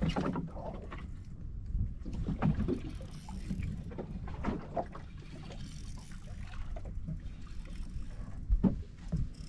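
Steady low rumble of wind and water around a small fishing boat, with scattered knocks and clatter from gear being handled aboard, the loudest a sharp knock near the end.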